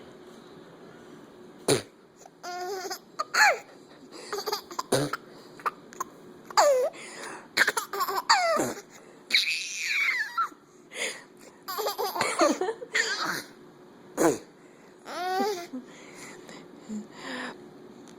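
A baby laughing in many short bursts and high squeals, with a few sharp clicks in between.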